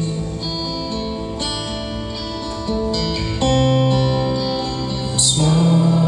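Live acoustic guitar, notes ringing in a slow, sustained chord progression between sung lines, with a brief hiss about five seconds in.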